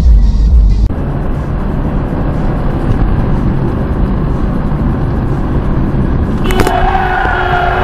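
Car road and engine noise as picked up by a dashcam: a heavy low rumble that changes abruptly about a second in to steadier road noise. Near the end a sudden knock comes, and a sustained high-pitched tone starts with it.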